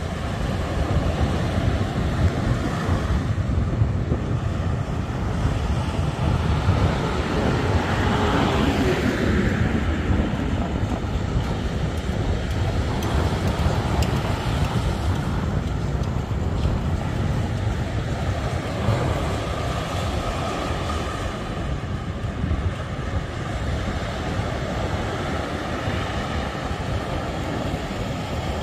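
Steady wind rumble buffeting the microphone, with a passing vehicle whose sound falls in pitch about eight seconds in.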